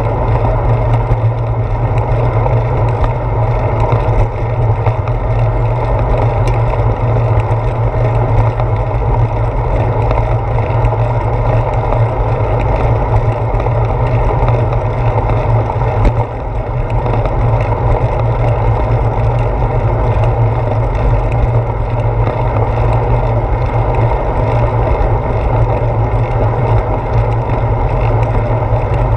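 Steady loud wind rumble on a handlebar-mounted GoPro Hero 4 while a bicycle rides along a concrete path, mixed with riding noise from the bike.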